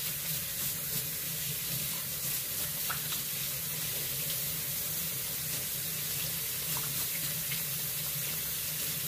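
Tap water running steadily from a faucet into a sink while hands are washed under it.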